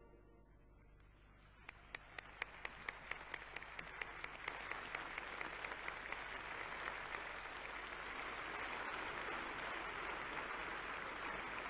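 A large crowd breaks into applause about two seconds in. It starts as quick, evenly timed clapping and spreads into dense, steady applause that grows louder.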